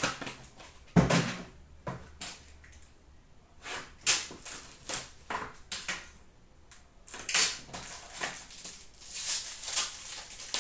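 Cardboard hobby boxes of hockey cards being handled: irregular taps, knocks and rustles, with a heavier thump about a second in and a run of scratchy rustling near the end as a box is opened.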